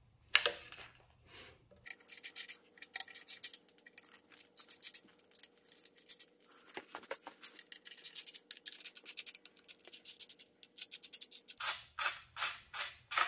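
Hand ratchet clicking in quick runs as a loose oil pan bolt is backed out, with a few louder, slower strokes near the end.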